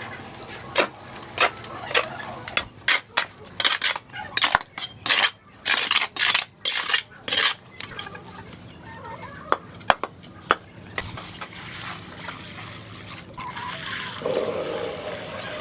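Steel shovel blades scraping and striking a concrete floor as a dry sand-and-cement mix is turned over, a fast irregular run of sharp scrapes and clinks. In the last few seconds water pours from a plastic bucket onto the pile.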